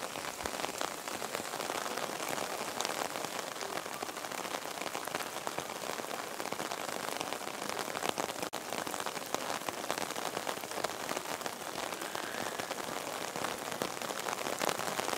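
Steady rain falling on wet stone paving: an even hiss dotted with many small drop ticks, broken only by a momentary gap about eight and a half seconds in.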